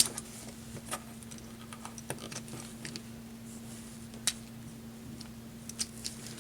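Scattered small plastic clicks and taps of a pocket-sized Transformers Legion Class Blizzard Strike Optimus Prime figure as its parts are folded and snapped while it is converted from truck into robot mode, over a faint steady hum.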